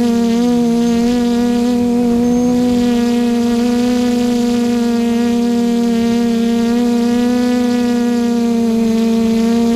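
Quadcopter motors and propellers of a QAV540G multirotor droning steadily, picked up by the camera riding on it: one even hum with a stack of overtones, its pitch wavering a little about half a second in and again near the end.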